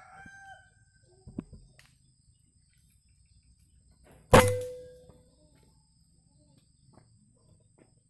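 A single shot from a Benjamin Marauder PCP air rifle about four seconds in: one sharp crack with a short ringing tail.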